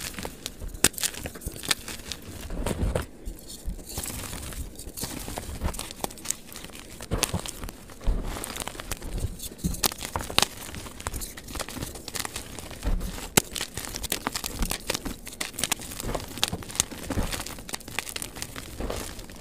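Hands crushing and crumbling blocks of dyed gym chalk: a dense run of crunching and crackling as the chalk breaks apart and grinds to powder, played back sped up.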